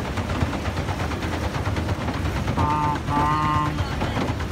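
Pedal boat under way: a steady, rapid rattling clatter with a low rumble from its pedal-driven paddle wheel. A steady pitched tone, horn-like, sounds twice briefly a little past the middle.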